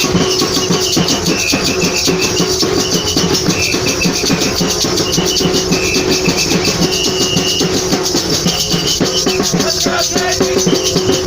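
Batucada-style percussion band playing drums and shakers in a dense, steady rhythm.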